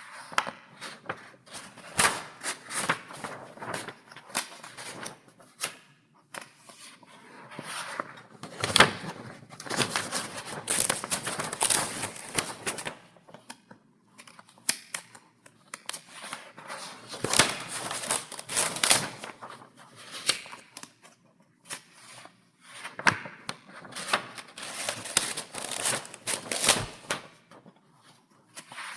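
Pages of a paper file being turned over and over: irregular crisp flips, snaps and rustles of paper, in clusters with short pauses between them.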